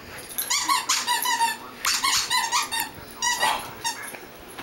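Rubber squeaky dog toy squeezed in quick runs of squeaks, about three bursts that fade out after about three and a half seconds, as a golden retriever puppy plays with it.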